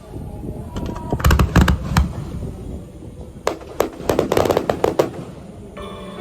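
Fireworks bursting: two volleys of sharp bangs and crackle, the first about a second in and the second around three and a half seconds in, each with a low rumble. Music comes in near the end.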